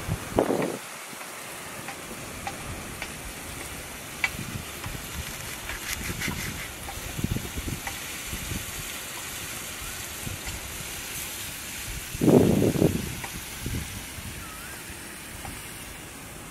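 Hands breaking apart a fire-roasted snakehead fish, with soft crackling and tearing of its charred skin and flesh over a steady background hiss, and a louder low bump about twelve seconds in.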